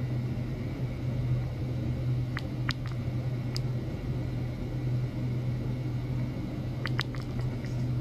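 Steady low electrical hum from the bench test setup, with a few faint sharp ticks about two and a half seconds in, again about a second later, and near the end.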